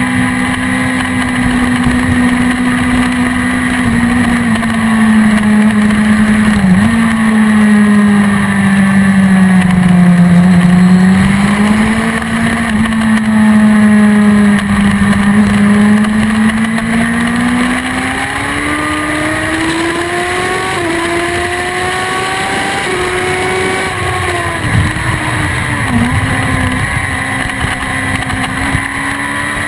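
BMW S1000RR inline-four sport bike engine running hard at high revs, heard from onboard with wind rush over the microphone. The engine note sags a little mid-way, then climbs steadily, broken by a few quick dips near the end.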